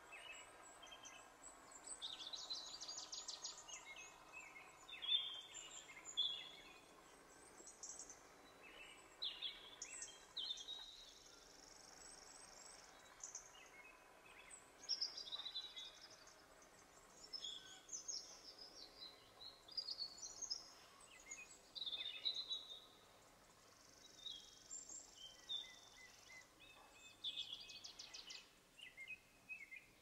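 Several birds calling: scattered high chirps and whistles with a few fast trills, and twice a steady high buzz lasting about two seconds.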